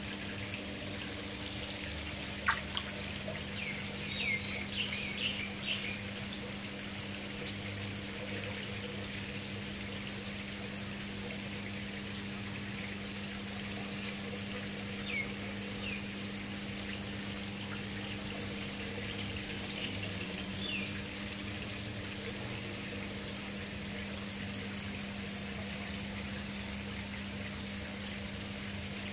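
Steady trickle of water running into a koi pond over a low, steady hum. A sharp click comes about two and a half seconds in, and a few short, faint, high chirps are scattered through.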